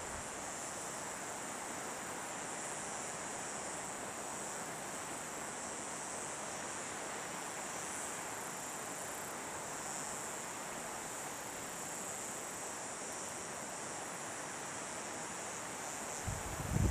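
Steady insect chorus, a high continuous band, over an even background hiss. About sixteen seconds in comes a brief low rumble.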